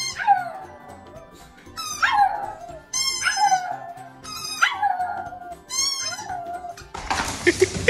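A pug howling in about five short calls, each falling in pitch, in answer to squeaks from a rubber squeaky toy. A rush of noise takes over in the last second.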